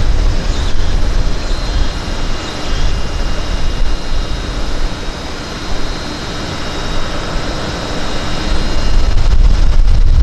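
Wind buffeting the microphone: a loud, uneven low rumble that eases off in the middle and swells again near the end.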